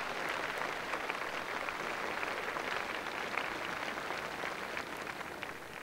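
Large crowd applauding, a dense steady clapping that fades away near the end.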